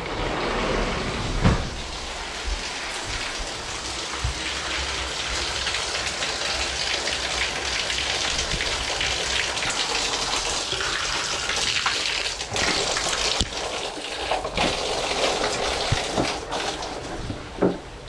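Steady rush of falling water, as of a waterfall, with a few brief louder splashes or knocks about a second and a half in and near the end.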